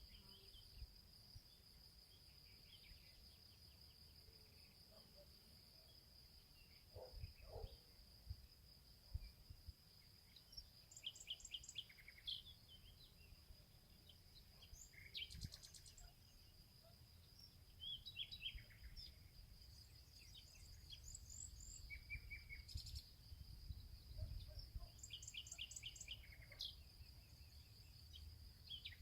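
Faint forest ambience: small songbirds chirping in short scattered phrases, more often in the second half, over a steady high thin whine and a low rumble.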